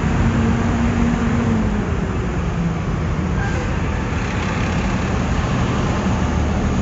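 Trucks idling in stopped highway traffic: a steady, even engine rumble with road noise.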